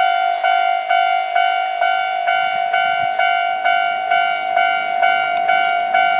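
Japanese level-crossing electronic warning bell ringing, one repeated tone struck about twice a second.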